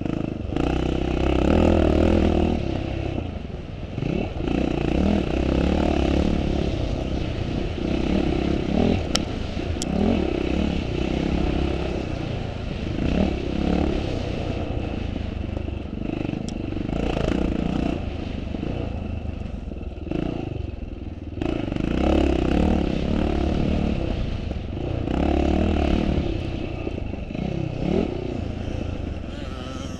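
Classic twin-shock motocross motorcycles racing, engines revving up and easing off again and again every few seconds.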